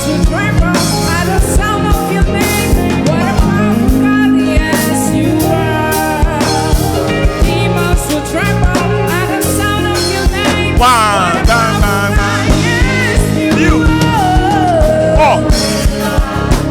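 Choir and live band playing a song at rehearsal: voices singing over drum kit, bass and guitar with a steady beat.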